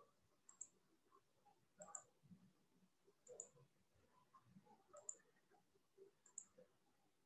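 Faint computer mouse button clicks: five single clicks spaced a second or more apart, each a quick double tick of press and release, as objects are picked one at a time.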